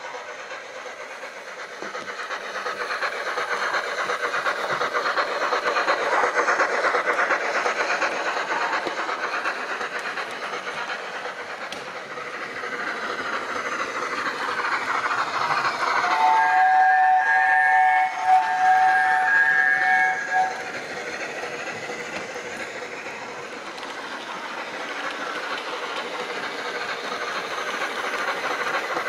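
Steam locomotive running sounds from a Zimo sound decoder's small speaker in an OO-gauge Hornby A4 Bittern model, swelling and fading as the model passes. About halfway through, a several-note chime whistle sounds for about four seconds, briefly broken, and is the loudest thing heard.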